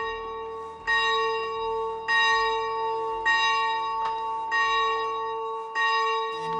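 Chapel bell rung by hand with its rope. It is struck about every second and a quarter, five or six times, and rings on between strokes.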